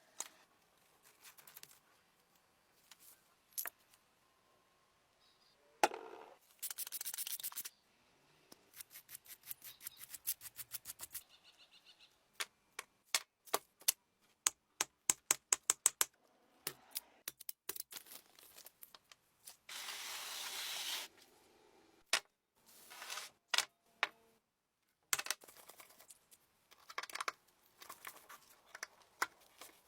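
Hands-on workbench sounds from restoring an antique hair dryer: many small sharp clicks and taps, with quick runs of clicks around the middle. Two short bursts of hiss come about seven seconds in and again around twenty seconds.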